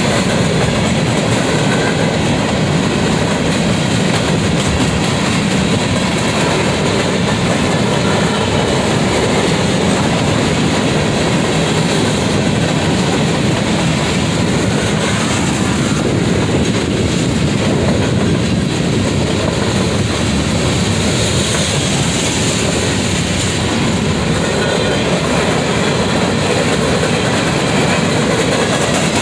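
Freight train of open hopper cars and tank cars rolling past at a steady speed, steel wheels running on the rails in an even, continuous rumble.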